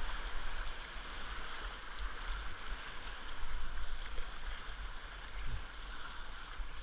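Whitewater rushing steadily around a kayak running a high-water river through big standing waves, with a low rumble under the hiss of the water.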